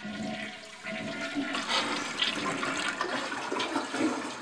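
Toilet flushing: a steady rush of water.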